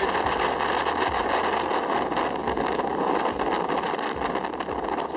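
Small open motorboat under way at speed: a steady engine drone under the rush of water along the hull and wind on the microphone.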